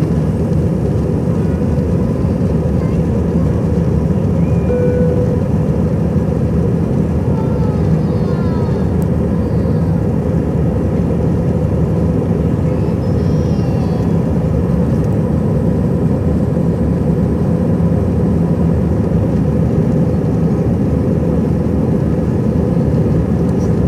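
Airbus A320-214's CFM56 jet engines at takeoff thrust, with rushing air, heard as a loud, steady rumble inside the passenger cabin.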